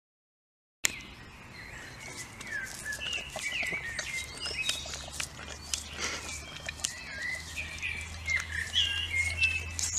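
Silent for about the first second, then small birds chirping and twittering in short, overlapping calls, with a few brief clicks among them.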